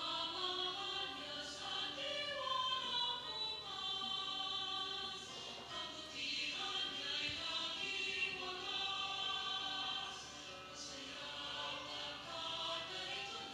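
A choir singing a hymn.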